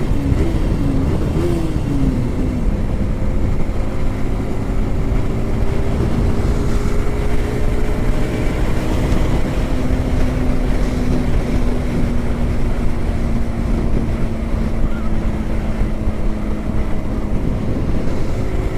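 Yamaha R15M motorcycle's 155 cc single-cylinder engine running at a steady highway cruise, with wind rushing over a helmet-mounted microphone. The engine note wavers for the first couple of seconds, then holds nearly steady.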